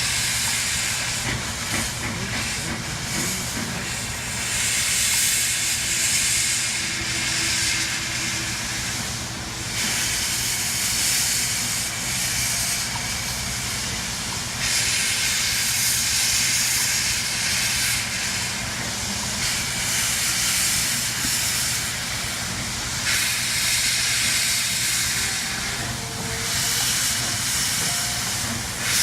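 Steam locomotive hissing steam in long stretches of a few seconds each, starting and stopping repeatedly over a steady low hum.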